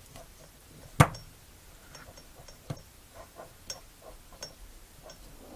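A sharp click about a second in, then a run of light ticks and rattles, about three a second, as a small smartwatch module with a USB cable attached is shaken back and forth to trigger its step counter.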